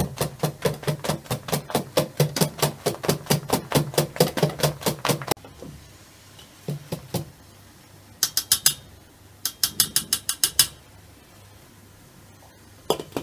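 A wire whisk clatters against a stainless steel bowl as it beats honey cake batter, at about five or six strokes a second for five seconds. Short runs of quicker, lighter metal clinks follow in the second half, and one more comes near the end.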